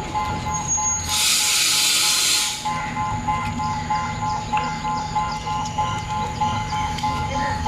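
Sri Lanka Railways Class S12 diesel multiple unit with its engine rumbling low, a loud burst of air hiss lasting about a second and a half near the start, and a rapid electronic beeping, about three or four beeps a second, that keeps going throughout.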